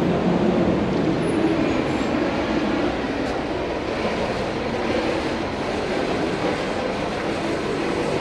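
A steady low rumbling noise with no breaks, the kind picked up outdoors while walking with a camera.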